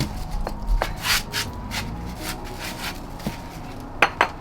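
Concrete interlock paving stones being handled and brushed off: scattered scraping and light clinking of block against block, with two sharp knocks in quick succession near the end.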